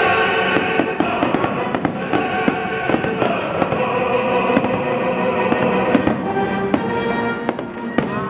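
Aerial fireworks going off in quick, irregular succession, many sharp bangs over music played with the display.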